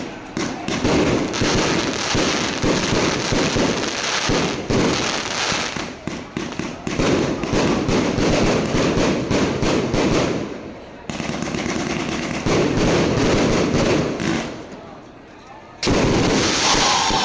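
Fireworks going off in a dense run of rapid crackling bangs, with two short lulls. Near the end the crackle cuts off abruptly and a different, steadier sound takes over.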